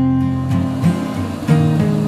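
Background music: an instrumental played on guitar, with a new chord coming in about one and a half seconds in.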